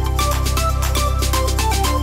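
Background music: an electronic track with a steady beat and a bass line.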